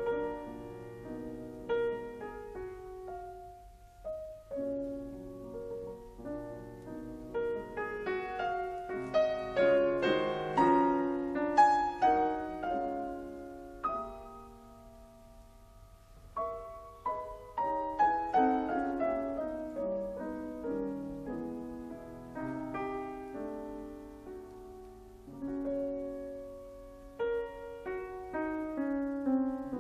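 Solo piano music, with flowing runs of notes that swell and fade, softening briefly in the middle.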